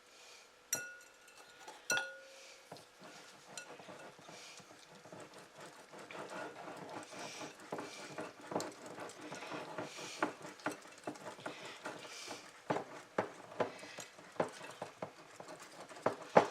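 A utensil mixing thick sweetened condensed milk and Kool-Aid powder in a mixing bowl. It gives two ringing clinks against the bowl in the first two seconds, then from about five seconds in a steady run of scraping and stirring with frequent clicks against the bowl's side.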